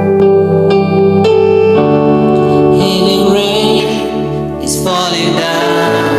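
Slow worship music: sustained keyboard chords changing every second or so, with a faint voice over them.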